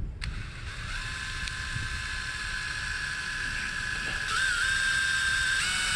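Small electric drill running continuously, its bit boring into a metal trailer lock with a high steady whine. The whine wavers and gets louder about four seconds in, then steps up in pitch near the end.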